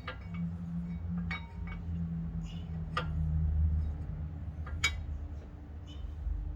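Brake pad being pushed into a car's front caliper bracket, its metal backing plate clinking against the bracket's metal retaining clips. Several sharp clinks a second or two apart, over a low steady hum.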